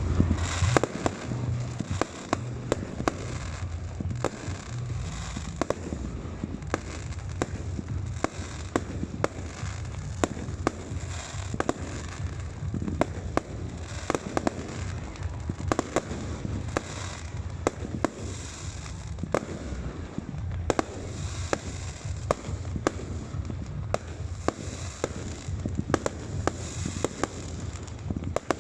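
Aerial fireworks going off continuously: many sharp bangs and pops at an irregular pace, several a second, over a steady rumble and crackle.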